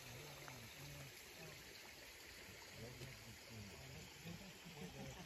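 Faint trickle of a shallow creek running over stones.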